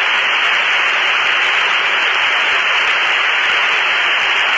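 Steady, even hiss of static on the jet's radio and intercom audio, with no voice on the channel.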